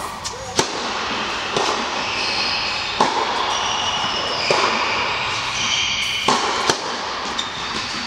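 Tennis ball struck by rackets and bouncing during a rally: sharp pops about every one to one and a half seconds, echoing in an indoor tennis hall, with high squeaking in between.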